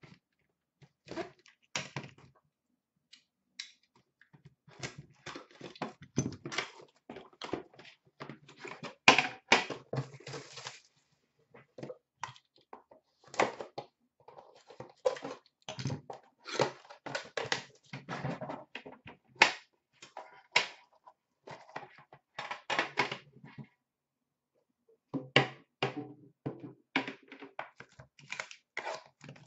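Unwrapping a hobby box of 2011-12 Upper Deck The Cup hockey cards by hand: crinkling shrink wrap and cardboard, with irregular clicks and knocks as the tin pack inside is handled and set on a glass counter. It pauses briefly near the end.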